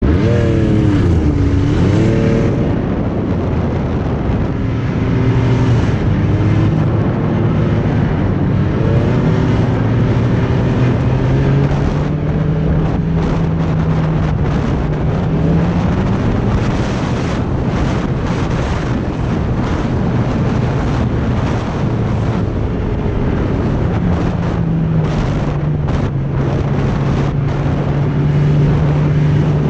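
Snowmobile engine running steadily under way, its pitch dropping sharply and climbing back about a second or two in, then rising and settling again as it cruises. Wind noise on the microphone runs under it.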